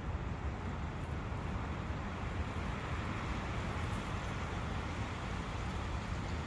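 A brook running steadily: a constant rushing noise with a deep low rumble beneath it.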